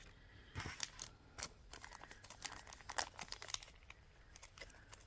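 Faint rustling of a small bead package being handled, with scattered light clicks and clinks from the metal Celtic love knot connectors inside it.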